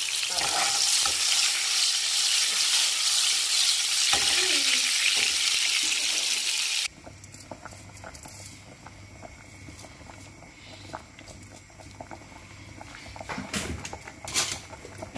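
Fish balls frying in oil in a non-stick pan: a loud, steady sizzle that cuts off abruptly about seven seconds in. It gives way to a much quieter stretch with a low hum and a few sharp knocks near the end.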